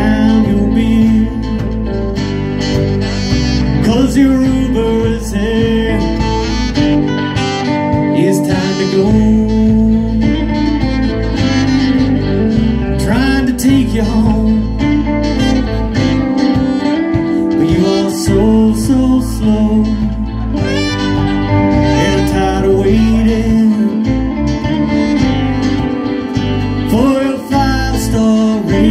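Live band playing a song with electric and acoustic guitars and keyboard, and a singer.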